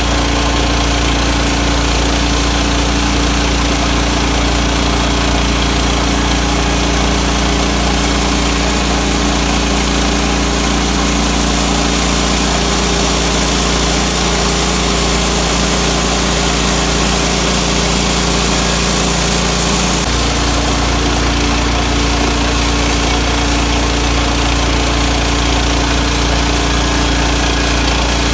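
Sawmill engine running steadily under load while milling a white pine log, with a shift in its tone about 20 seconds in.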